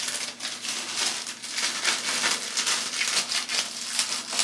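Thin plastic crinkling and rustling: a plastic shower cap being handled and pulled on over dyed hair.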